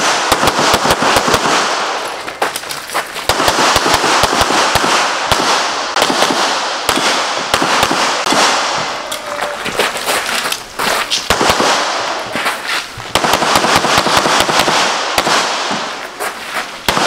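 Pistol shots fired in rapid strings, several a second, with short breaks between strings, each shot sharp and ringing off the surrounding walls.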